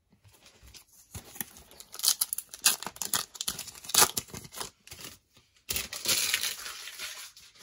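Plastic cello wrapper of a trading-card pack crinkling and tearing as it is ripped open by hand, in two spells of quick crackling.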